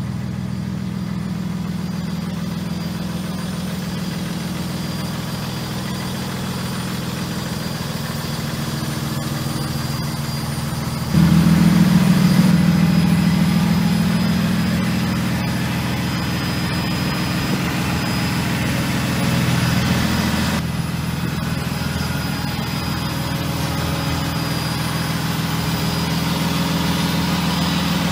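Cummins diesel engine of a Freightliner M2 dump truck idling steadily. About eleven seconds in it suddenly gets louder and stays louder for about ten seconds, then settles back to a steady idle.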